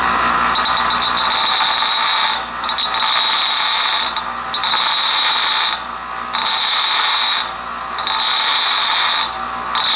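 Bench grinder grinding down the end of a steel tube held against the side of the wheel. The grinding has a high ring and dips briefly about every second and a half.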